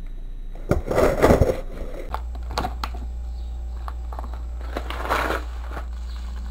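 Crinkling and rustling of a paper coffee bag being handled, in two bursts, a longer one about a second in and a shorter one about five seconds in, over a low steady hum that starts about two seconds in.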